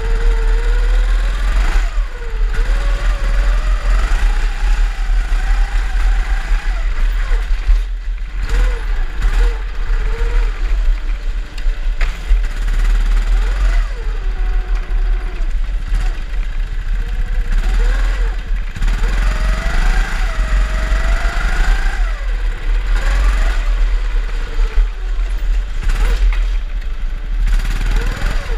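Drift kart engine revving up and down over and over, its pitch rising and falling every few seconds as the throttle is worked, over a steady low rumble.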